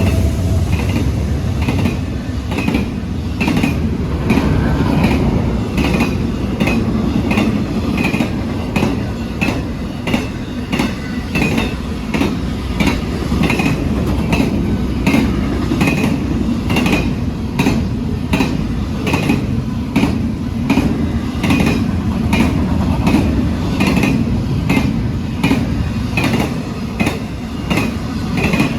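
Norfolk Southern freight train's cars rolling past, their wheels clacking over the rail joints in a steady rhythm over a low rumble.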